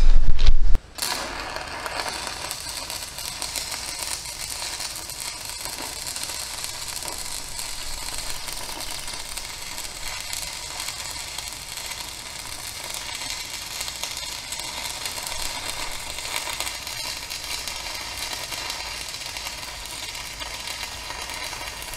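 Electric arc welder crackling steadily as steel is welded at the joint between a beam and a pipe cap. It starts suddenly about a second in.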